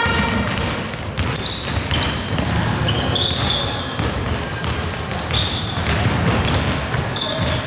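Basketball game play: the ball bouncing on the court, with short squeaks from shoes scattered through, several bunched around the middle and a few near the end.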